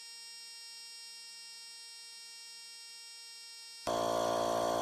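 Faint steady electrical hum, then, about a second before the end, a 12-volt portable tyre inflator's compressor starts abruptly and runs steadily while pumping up the tyre.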